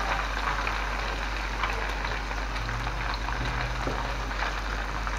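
Dried anchovies (ikan bilis) deep-frying in a wok of hot oil, a steady sizzle with faint scattered crackles as they fry toward crisp.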